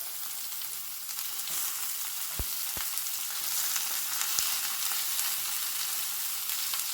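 Ridge gourd peels sizzling in hot oil as they are sautéed, a steady hiss with fine crackle, with two soft knocks about two and a half seconds in.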